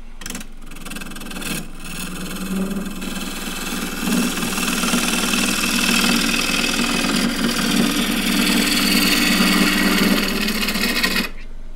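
Bowl gouge cutting a spinning olive-wood bowl on a lathe: a dense hiss of the cut over the steady hum of the running lathe. It builds about four seconds in and stops abruptly near the end.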